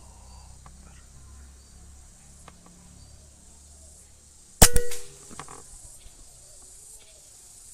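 A PCP air rifle fires once about four and a half seconds in: a sharp crack with a short metallic ring after it.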